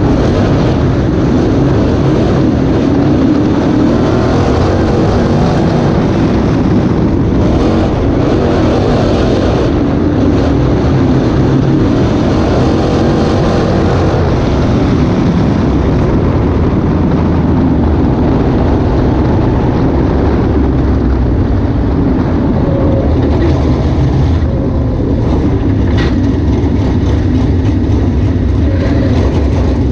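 Dirt-track race car's engine running steadily at low to moderate revs, heard from inside the car's cockpit.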